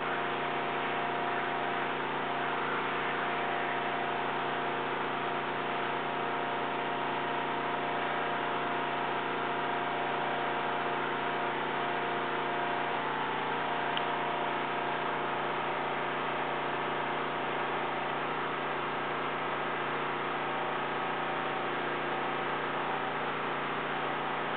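Motorized wooden blind's loud motor running steadily as it lowers the slats, heard over the steady drone of air compressors running in the next room.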